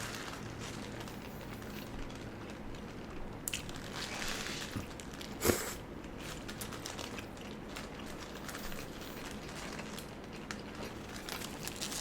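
Faint crinkling and crunching of food and its paper wrapping being handled while eating a burger and fries, with a few soft clicks and taps, the sharpest about halfway through.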